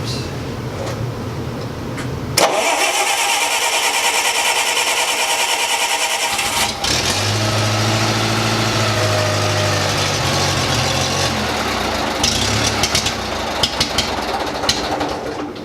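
The Wisconsin four-cylinder gas engine of a 1970s Bobcat 610 skid steer is cranked on the starter for about four seconds, a hard start after sitting two weeks. About seven seconds in it catches and runs with a steady note, then turns rougher with clicks near the end.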